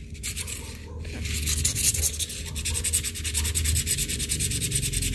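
Emery sandpaper rubbed by hand on the metal brake plate of a sewing-machine motor's clutch, in fast, even back-and-forth strokes that grow stronger about a second in. It is scuffing off old glue so the new cork will grip the plate.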